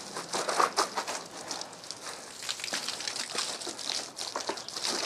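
Water from a garden hose spraying onto a stack of plastic Milwaukee PACKOUT toolboxes: an uneven spattering hiss, like a heavy downpour.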